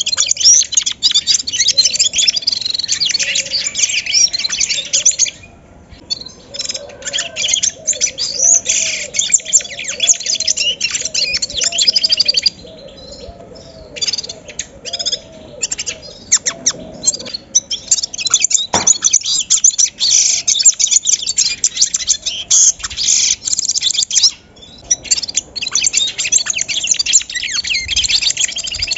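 A flock of bramblings chirping and singing together in a dense, loud chorus, with short lulls. A lower repeated call runs underneath for several seconds in the middle.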